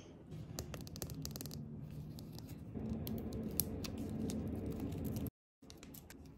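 Fingers peeling and tearing the seal of a small plastic toy ball and handling its plastic shell, giving a run of crinkles, scratches and sharp clicks. The sound drops out briefly near the end.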